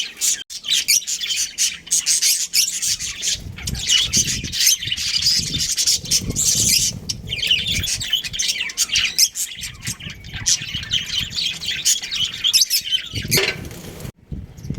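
Budgerigars chirping and chattering, many quick high calls overlapping without a break, with some low thumping underneath partway through.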